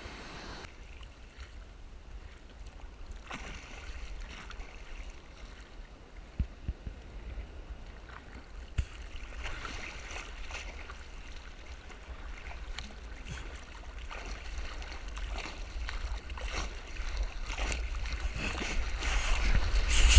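Seawater splashing and lapping around a surfboard as it is paddled, with a low rumble of water and wind on the microphone and small splashes, growing louder near the end.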